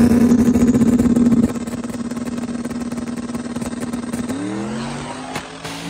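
High-powered drag-racing engine held at high revs with a rapid stutter, then dropping off sharply about a second and a half in. Near the end another engine revs up and holds at a steady higher pitch.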